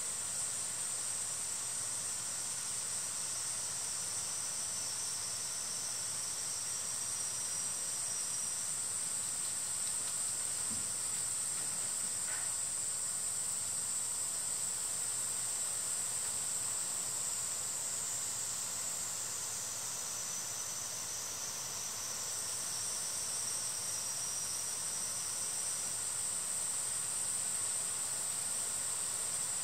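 Steady high-pitched insect chorus, with a fainter second buzzing voice joining in near the start and again past the middle.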